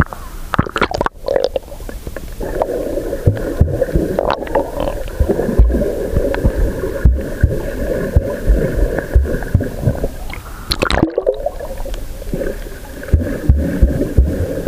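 Muffled gurgling and sloshing water picked up by an action camera sealed in its waterproof housing at and below the sea surface, with sharp clicks and irregular dull knocks against the case.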